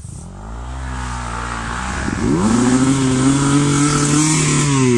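Enduro dirt bike engine revving. The pitch climbs gently at first. About two seconds in, the throttle is opened hard and the engine runs high and loud for about two seconds. Near the end it falls away as the throttle is closed.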